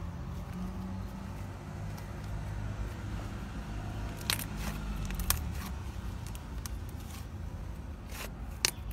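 Thick slime being stretched and then squeezed between two fists, with three sharp pops: about four seconds in, about five seconds in, and near the end.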